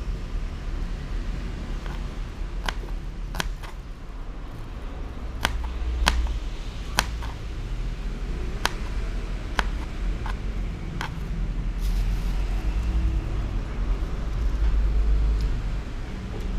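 A small knife's blade tapping on a plastic cutting board as shallots are diced: about ten sharp, irregular taps, some seconds apart. Under them is a steady low rumble that swells twice.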